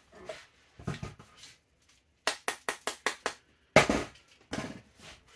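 A quick run of about six sharp taps, about five a second, driving a receiver pin out of an airsoft AEG, followed by one louder knock and a few smaller handling knocks.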